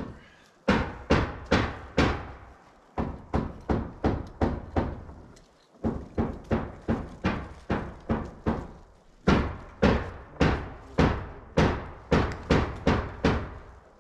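A hammer driving nails into roof framing: runs of sharp blows, about two or three a second, with short pauses between runs.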